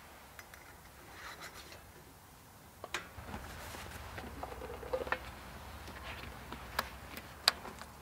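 Scattered light clicks and knocks from a gloved hand working the switches and levers on a Wood-Mizer LX150 sawmill's control panel. A faint low rumble comes in about three seconds in.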